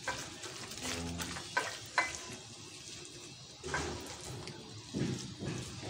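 A hand mixing and squeezing raw minced meat in a glass bowl: soft, moist squishing with a few light clicks.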